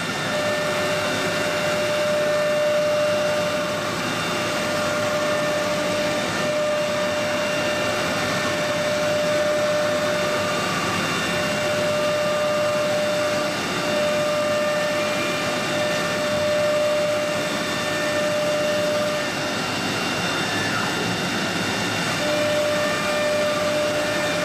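Three-spindle CNC wood router running a job: a steady high whine from the spindle motors over cutting noise, with a few high tones that break off and come back.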